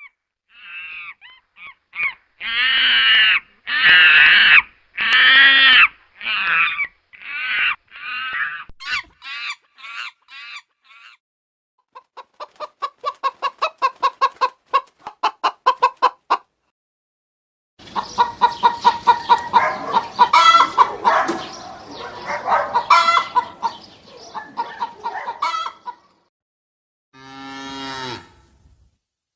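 Chickens clucking and calling in several separate short clips: a string of longer calls, then a run of quick clucks, then many birds clucking and cackling together, with a shorter, lower call near the end.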